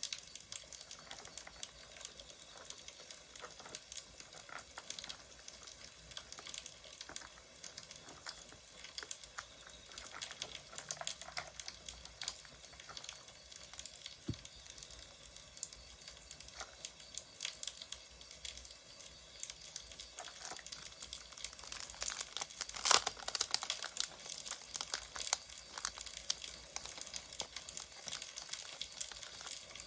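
Paper crinkling and rustling under the hands, over a steady crackle of burning firewood; the crinkling gets loudest about two-thirds of the way through.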